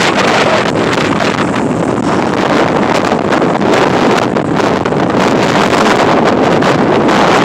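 Strong gusty wind blowing hard across the microphone ahead of a thunderstorm: loud, continuous rushing noise with rapid buffeting.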